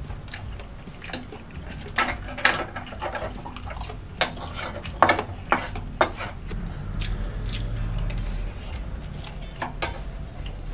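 Close-miked eating: wet chewing and mouth clicks, with a spoon and chopsticks clinking and scraping against bowls in sharp, irregular knocks, the loudest clustered in the middle.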